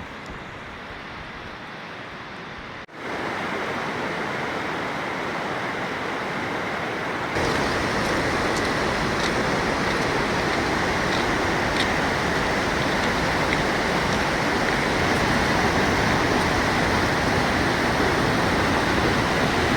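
Waterfall: a steady rush of falling water, getting louder about three seconds in and again about seven seconds in.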